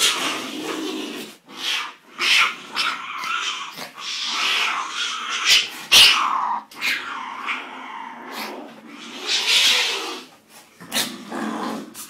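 Jaguarundi calling: a string of rough, noisy cries of varying length with short pauses between them, the loudest a sharp one about six seconds in.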